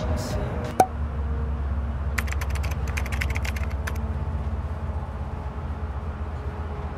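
Bus engine running with a steady low hum, heard from inside the passenger cabin. A single click comes just under a second in, and a burst of rapid clicking about two seconds in lasts roughly a second.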